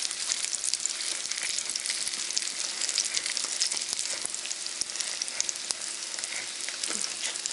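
Syrniki (cottage-cheese pancakes) frying in shallow oil in a frying pan: a steady sizzle full of small crackles and pops.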